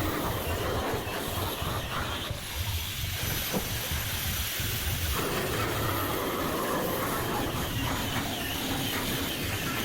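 Electric router carving a design into a wooden tabletop: a steady hiss of cutting, with a high motor whine that comes in for a few seconds and drops out again.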